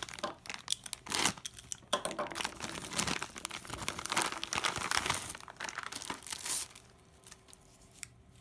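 Clear plastic bag crinkling and crackling as a power adapter and its coiled cord are handled and pulled out of it. The crinkling stops about two-thirds of the way through.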